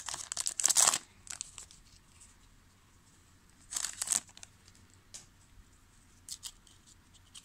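Foil wrapper of a 2000 Topps Season Opener football card pack crinkling loudly as it is torn open during the first second. About four seconds in there is a shorter crinkle as the cards are slid out of the wrapper, and a few faint ticks follow near the end.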